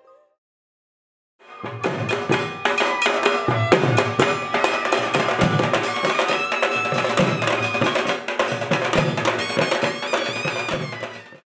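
A Bengali dhak drum ensemble beating a fast, dense rhythm with sticks, with a clarinet playing a wavering melody over the drums. It starts after about a second and a half of silence and cuts off just before the end.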